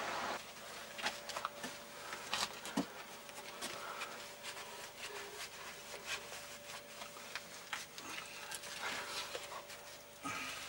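A gloved hand scraping and pulling loose mortar and brick debris out of a hole in a masonry wall: scattered small scrapes, clicks and crumbling, over a faint steady hum.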